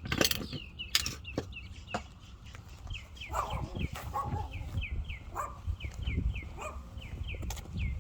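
A bird chirping over and over in short falling notes, about two or three a second, with scattered knocks and rustling mixed in.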